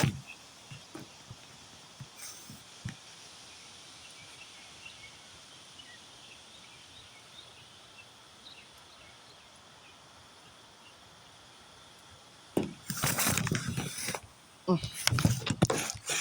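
Faint outdoor background with scattered small bird chirps, then two loud rushes of gusty storm wind buffeting the microphone, one about twelve seconds in and another near the end.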